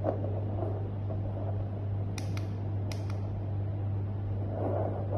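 W8-25 fetal doppler's loudspeaker giving a steady low hum and hiss, with a few faint clicks about two and three seconds in.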